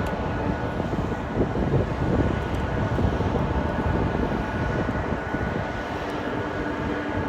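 Jet engines of a Boeing 747-400 Dreamlifter running at taxi power: a steady jet noise with faint steady tones, mixed with gusty wind rumbling on the microphone.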